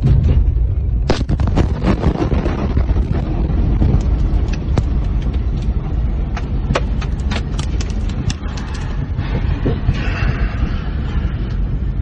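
The blast wave of the Beirut port explosion hitting a car: a sudden loud, low rumble, followed by many sharp cracks and knocks over the next several seconds.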